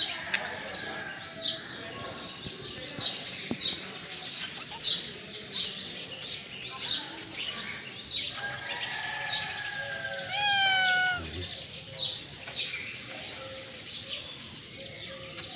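Small birds chirping continuously in quick, high, short calls. About eight seconds in, a cat gives a long drawn-out meow that ends in a louder, bent call about two-thirds of the way through.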